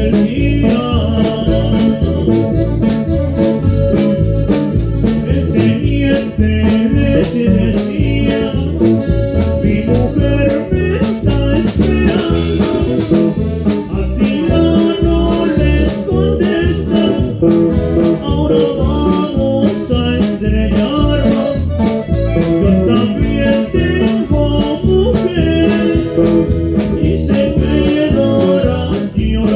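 Live norteño band playing with a steady drum beat under plucked strings and bass. A cymbal crash rings out about twelve seconds in.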